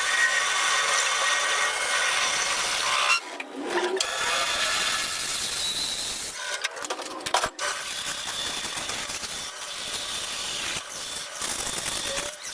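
A power tool working metal on an industrial gear shaft, a steady high-pitched grinding noise with a few brief breaks.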